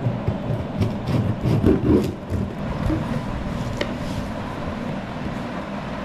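Objects being handled and moved about on a tabletop: irregular knocks and rustles, busiest about one to two seconds in, over a steady low hum.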